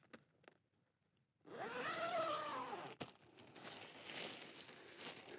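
Zipper on a Dyneema (DCF) tent door drawn open in one long pull, its pitch rising and then falling, followed by quieter rustling of the fabric.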